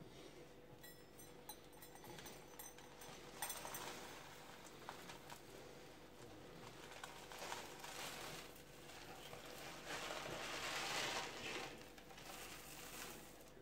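Soft, faint rustling and scraping of dry four-grain porridge flakes as a metal measuring cup scoops them out of a plastic tub, with a few small clicks. The rustling is loudest about ten seconds in.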